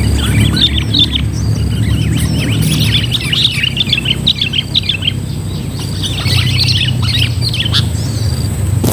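Sooty-headed bulbuls calling: three spells of rapid chirps with short gaps between them, over a steady low rumble.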